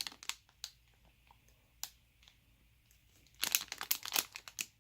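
Plastic packaging crinkling as squishy toys are handled: a brief rustle at the start, a few faint ticks, then a longer stretch of crinkling from about three and a half seconds in.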